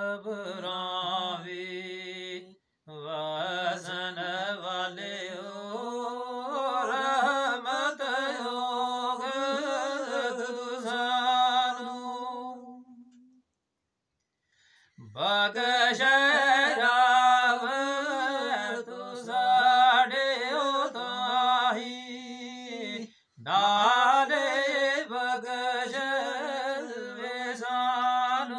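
A man's solo, unaccompanied voice chanting Gojri devotional verse (kalam) in long, drawn-out, wavering notes. He sings two long phrases with a pause for breath of about a second and a half near the middle.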